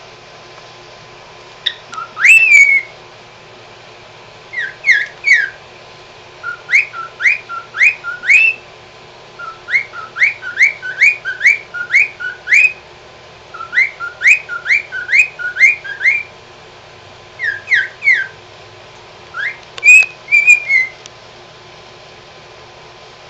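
Pied cockatiel whistling its song: phrases of short, quick rising whistled notes, several in a row, with pauses between the phrases. A warbled note comes near the end.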